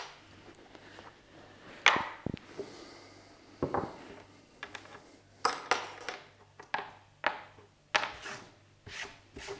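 Small metal hand tools and screws clinking and knocking on a wooden workbench as they are picked up and put down, about a dozen separate clicks at irregular intervals.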